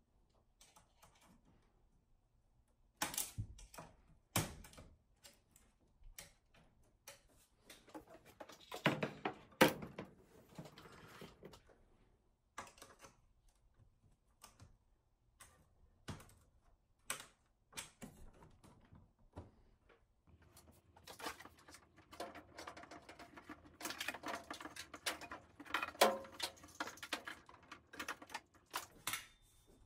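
Irregular clicks and taps of a small screwdriver and fingers working at the aluminium frame and wire connectors of an Apple Cinema Display, with a denser clatter of handling in the last third.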